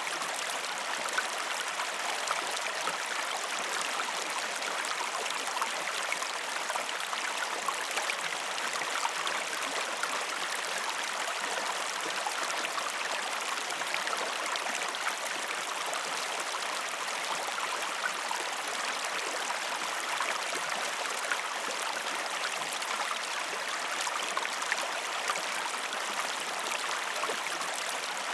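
Falling water rushing steadily, with small splashes and gurgles flecking the even hiss.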